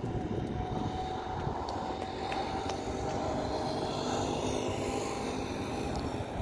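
Dassault Falcon 50 business jet's three turbofan engines running on landing approach: a steady jet rush with a faint whine, over a low rumble of wind on the microphone.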